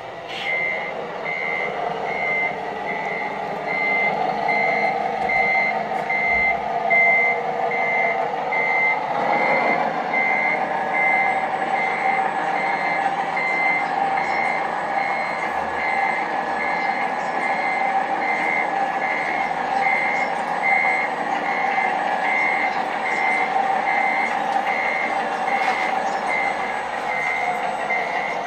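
Reversing beeper of a scale RC tipper truck, a high electronic beep repeating evenly about one and a half times a second, over the truck's steady running noise, which grows louder about nine seconds in.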